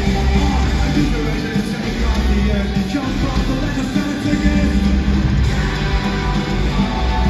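Live rock band playing loudly in an arena, heard from the crowd: a dense, bass-heavy mix of electric guitar and drums with some singing.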